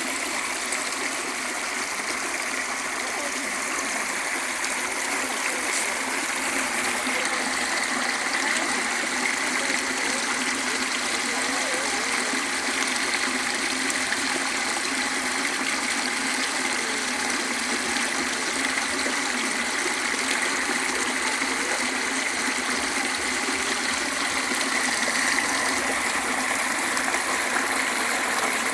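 Small river flowing, a steady, continuous rush of running water.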